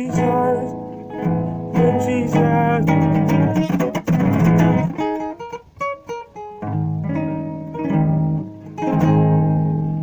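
Acoustic guitar strummed in full chords, the instrumental close of a worship song; the strumming thins out about halfway through, then picks up again.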